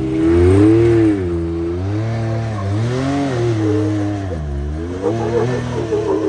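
Side-by-side UTV engine revving up and down in repeated surges as it crawls up a steep rock ledge, the loudest rev about a second in.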